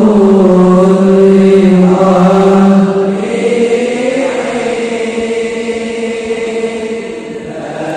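Men's voices chanting a devotional dawn chant before the subuh prayer in long, slow, held notes. The chant grows softer about halfway through and swells again near the end.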